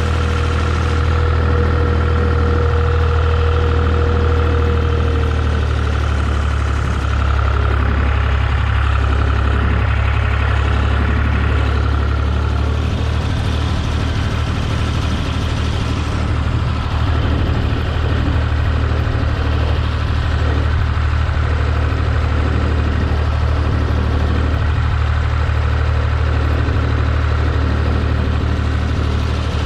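Tractor engine running steadily at a constant speed. A thin whine over it fades out about five seconds in, and a higher one around twelve seconds.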